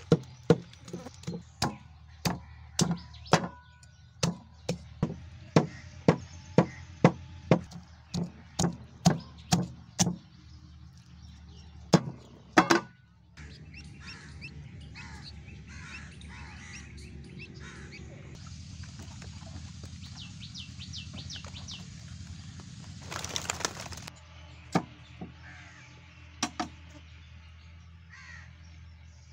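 A cleaver chopping a raw chicken on a wooden log block: steady chops about two a second for ten seconds, then two heavier chops. Later, chicks cheep faintly, and two more chops come near the end.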